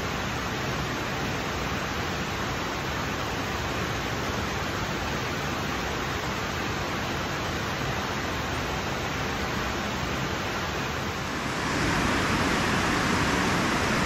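Water rushing over a dam, a steady even noise that grows a little louder near the end.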